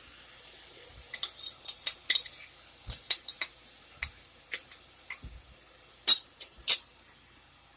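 Utensils clinking and tapping against the cooking pot and a bowl as yogurt is spooned into the frying masala. There are a dozen or so sharp taps, the two loudest near the end, over a faint sizzle.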